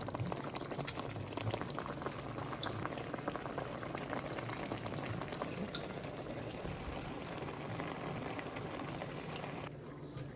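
A pot of greens (turnip, collard and mustard greens) boiling, bubbling and crackling steadily; it turns a little quieter and duller near the end.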